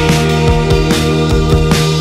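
Rock song with a steady beat, in an instrumental stretch between sung lines.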